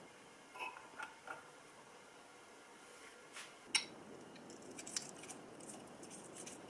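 Faint handling sounds from a greased motorcycle speedometer drive hub and its gear being worked by hand: a few small metallic clicks and taps, the sharpest just before four seconds in.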